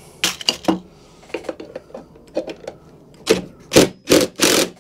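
Tools being moved about and set down on a workbench: scattered clinks and knocks, then a few louder scraping sounds near the end as a cordless impact driver is picked up.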